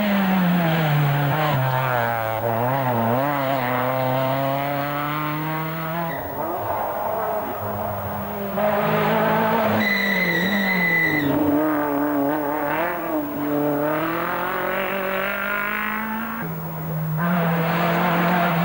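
Rally car engines driven hard as several cars pass one after another, their notes climbing and dropping with throttle and gear changes. A brief high squeal about ten seconds in.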